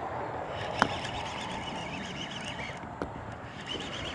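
Birds chirping and chattering over a steady outdoor background hiss, with two sharp clicks, about one and three seconds in.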